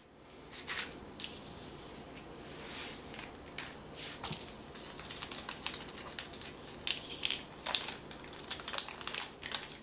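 Crinkling and light clicking of small plastic and paper wrapping being handled, as the parts of a Kinder Surprise toy are taken out of their capsule and unwrapped.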